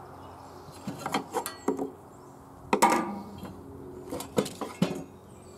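Coleman gas lantern knocking and rattling against the sides of its wooden storage box as it is gripped and lifted out: a string of sharp knocks, some with a brief metallic ring, the loudest nearly three seconds in.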